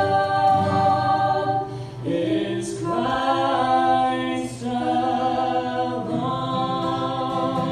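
A man and a woman singing a worship song together, holding long notes of a second or two each, with short breaks between phrases.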